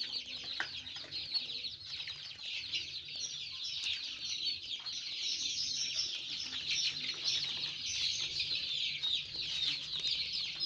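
A flock of about nineteen-day-old joper (ayam kampung super) chicks peeping without pause, many short, high, falling cheeps overlapping.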